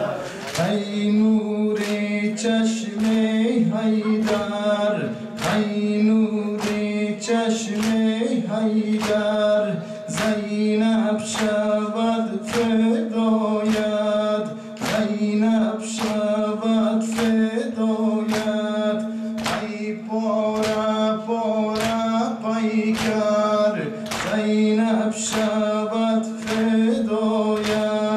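A nawha (Muharram lament) sung by male voices, with the men joining in, over matam: open hands slapping chests in a steady unison beat, less than a second apart.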